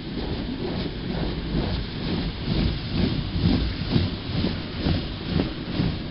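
Automatic car wash machine spraying water over a car: a steady hiss of water on the body and glass over a low rumble, with uneven pulses a few times a second that grow stronger about halfway through.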